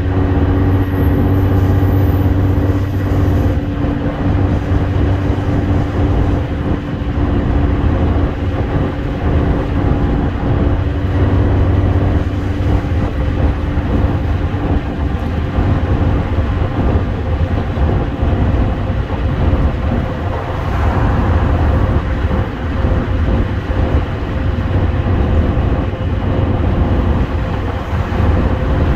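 Mercedes-Benz Citaro FL bus's OM906hLA 6.37-litre straight-six diesel running at a steady cruise, heard from inside the passenger saloon as a steady drone over tyre and road noise.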